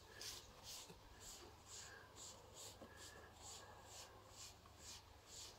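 Paper towel rubbed back and forth across the griddle plate of an electric grill, a faint scratchy wiping at about two strokes a second.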